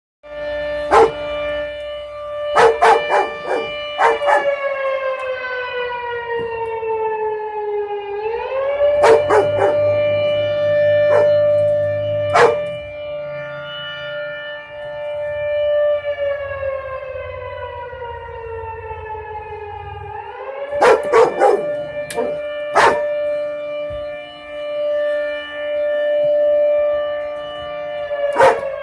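Air raid siren sounding as a fire alarm on its monthly test, wailing in long cycles: its pitch climbs quickly, holds steady, then slowly slides down, rising again about twelve seconds later. A Dalmatian barks over it in clusters of several short barks.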